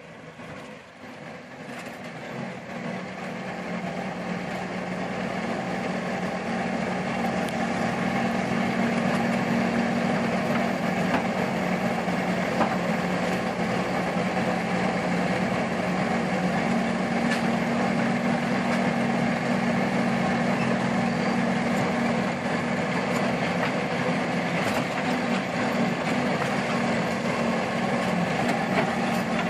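Ford Model T's four-cylinder engine running steadily at low speed, growing louder over the first several seconds. A few sharp knocks come from the car rolling over the loose wooden deck planks of a suspension bridge.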